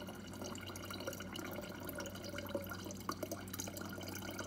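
Water running from a refrigerator's door dispenser into a plastic bottle, flushing a newly installed water filter.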